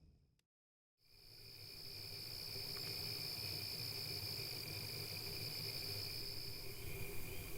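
Music fading out into a moment of silence, then a steady, high-pitched insect drone fades in over a low rumble.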